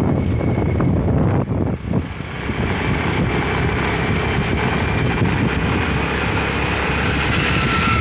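Steady road and wind noise from a vehicle driving along a wet road, with a brief dip in the noise about two seconds in.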